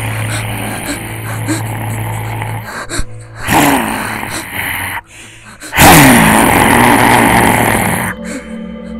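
Horror film score: a low steady drone, then two sudden loud stinger hits, about three and a half and six seconds in, the second the loudest.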